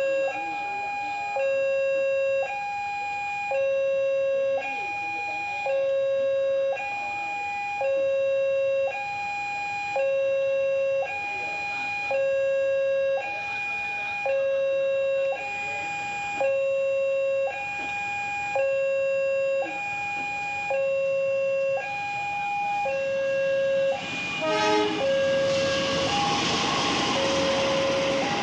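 Railway level-crossing warning alarm sounding its two-tone electronic signal, a higher tone then a lower one, alternating about once a second. Near the end a train arrives and passes with a rising rumble and rattle, while the alarm keeps sounding under it.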